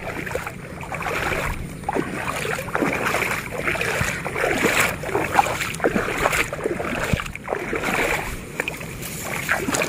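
Irregular splashing and sloshing of shallow water as someone wades through a flooded rice paddy, with scattered short splashes.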